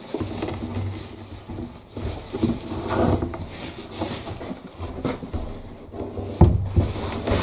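Knocks and scuffs of a wooden chair being moved and set against a door to wedge it open, with a heavy thump about six and a half seconds in.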